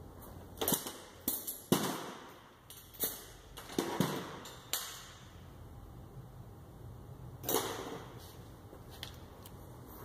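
Sharp metal clanks and knocks of hand tools being picked up and set down: a cluster of them in the first five seconds and one more about seven and a half seconds in, each ringing briefly.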